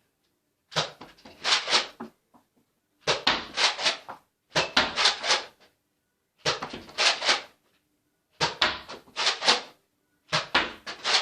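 Plastic clacking and rattling from a Nerf blaster being handled and primed: six short clusters of sharp clicks, about two seconds apart.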